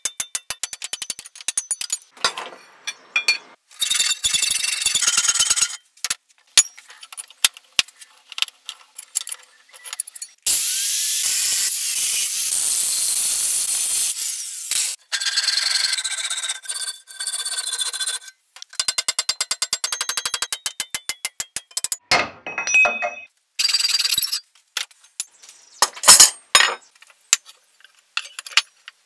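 Metalworking on forged steel hinges in short cut-together bursts: rapid rasping and ticking tool strokes on the steel. About halfway through, an angle grinder cuts the steel for about four seconds.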